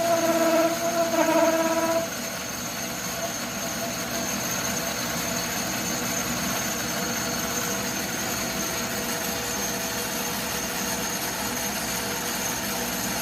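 Atlas metal lathe facing aluminum. A steady pitched whine from the cut runs for about the first two seconds and stops abruptly. After that the lathe keeps running with a steady mechanical whir.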